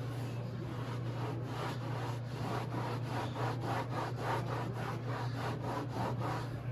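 Rapid back-and-forth scrubbing on a textured non-skid fiberglass boat deck, working off spray adhesive softened by a solvent soak, at about three strokes a second, over a steady low hum.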